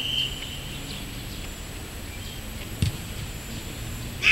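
A football struck once for a free kick: a single sharp thud about three seconds in, over steady open-air background noise. A brief loud high sound comes right at the very end.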